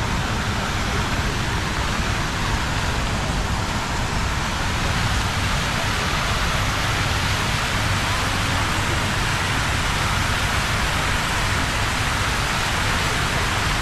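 Dancing fountain's water jets spraying and falling back into the pool: a steady rushing hiss.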